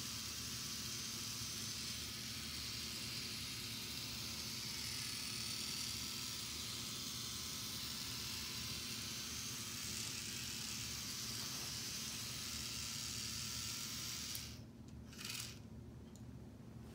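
K'nex model carnival ride running under a hand crank: a steady whir of plastic gears and rods with a hiss on top, which stops suddenly about fourteen and a half seconds in.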